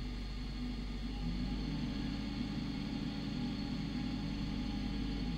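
Car engine and road noise while driving, the engine tone rising about a second in as the car speeds up, then holding steady.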